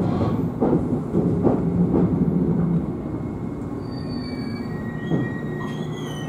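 Shizutetsu 1000-series electric train running along the track, with a steady low hum and a few short knocks in the first couple of seconds. The hum drops away about halfway through and the train quietens. Near the end come thin, high squealing tones from the wheels on the rails.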